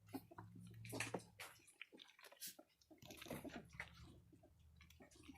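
Three-week-old border collie puppies eating from a shared dish: faint, irregular smacks and clicks of lapping and chewing.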